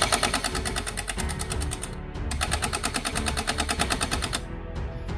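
Electric MP9-style gel blaster firing on full auto: two bursts of rapid, evenly spaced shots, about two seconds each, with a short break about two seconds in.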